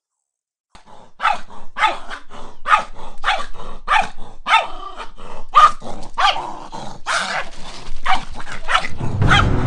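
Small dog barking over and over, about two sharp barks a second, with a few growly ones among them.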